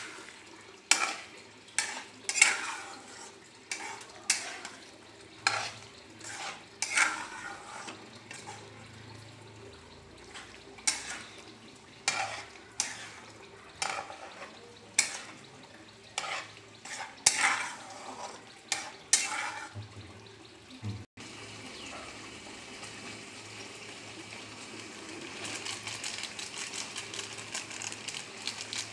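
A metal spatula scrapes and knocks against a black kadai as chicken curry is stirred, about one stroke a second with a short metallic ring after each. About two-thirds of the way through the stirring stops and the curry sizzles in the pan, a steady hiss with fine crackle that grows louder near the end.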